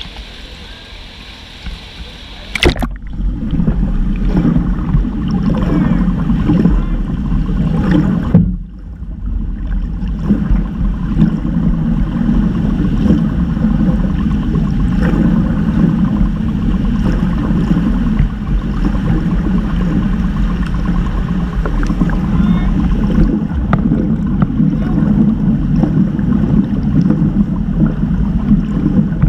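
Muffled underwater rumble and sloshing picked up by a camera submerged in a swimming pool, after a sharp splash about three seconds in as it goes under; a brief dip in the rumble comes near the middle.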